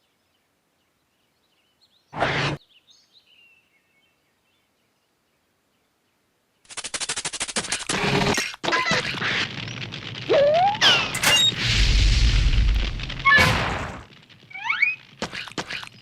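A chaotic string of comedic sound effects: a short burst about two seconds in, then after a pause a fast rattle of clicks, sliding whistle-like tones rising and falling, and a low rumble, with a few more pitch glides near the end.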